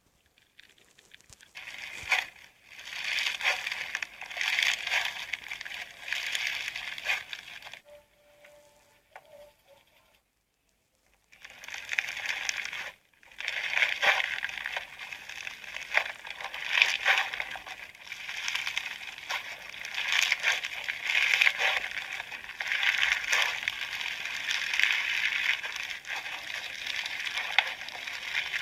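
Crunchy slime being squeezed and pressed, giving a dense run of crackling and popping that swells and fades in waves. It stops briefly for about two seconds roughly ten seconds in, then carries on.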